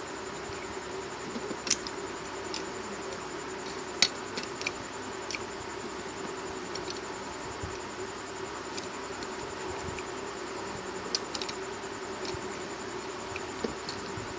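Small sharp clicks and taps of a phone circuit board being clamped into a metal PCB holder, scattered a few seconds apart over a steady low hum.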